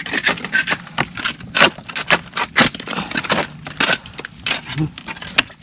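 Stones clattering and knocking against each other in quick, irregular clicks, several a second, as rocks are shifted and pried apart to reach a hidden mud crab.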